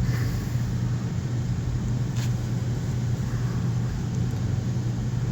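A steady low hum from a running motor or engine, with a faint click about two seconds in.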